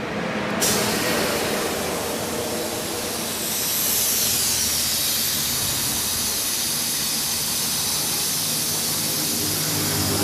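Industrial heat press giving a steady hiss that starts abruptly about half a second in and turns brighter a few seconds later.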